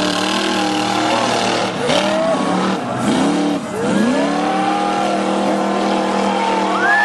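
Monster truck engine revving hard in about four sharp bursts, each rising and falling in pitch, as it climbs over crushed cars. It then holds a steady high-revving note.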